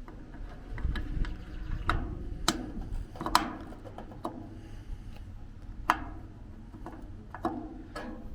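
Irregular clicks and knocks of a gas grill's control knobs being handled and pushed back onto their valve stems, with a few sharper snaps.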